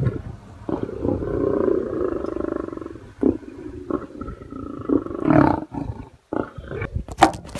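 Lions growling and snarling as they feed on a buffalo kill: one long pulsing growl in the first few seconds, then shorter growls, and a few sharp clicks near the end.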